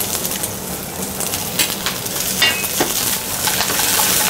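Sliced bok choy sizzling in very hot sesame oil in a stainless steel frying pan, with a few sharp clicks of metal tongs against the pan as the vegetables are tossed.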